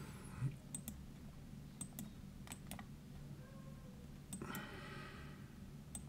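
Faint computer mouse clicks, several of them in quick pairs like double-clicks, over a low steady hum.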